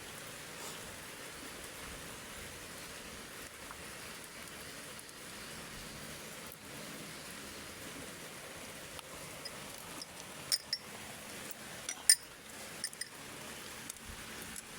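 Steady hiss of rain, with a few sharp metallic clinks late on, the loudest about twelve seconds in.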